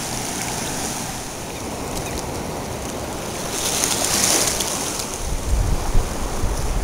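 Shallow surf washing over the beach, with wind on the microphone. A wash of water swells about halfway through, and wind buffets the microphone near the end.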